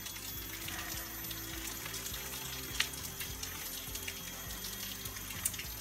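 Steady splashing of water from a garden spout into a stone basin, under soft background music that holds long low notes. There is one faint click near the middle.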